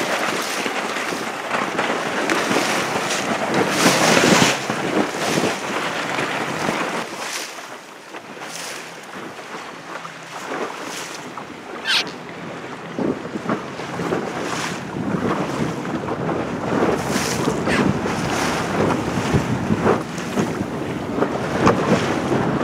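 Wind buffeting the microphone over water rushing and splashing past a sailboat under way, gusting unevenly, with one sharp knock about twelve seconds in.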